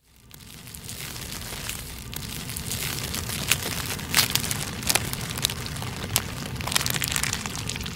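A feather's edge burning: a steady crackling hiss with many sharp, irregular pops and clicks, fading in after a moment of silence at the start.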